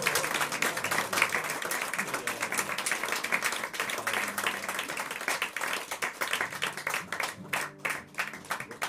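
A small audience applauding after a song. The clapping thins out to a few separate claps and fades away near the end.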